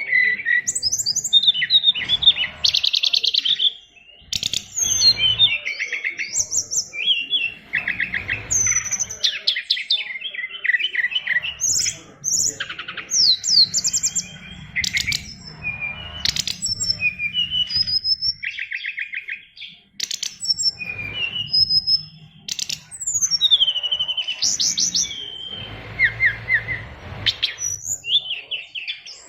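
A sikatan rimba dada coklat (SRDC) songbird sings a long, rich string of varied phrases. Fast trills, rapid repeated notes and falling whistles follow one another with only brief pauses, in the 'isian luber' style: a song packed with mimicked calls. A low rumble comes and goes beneath the song.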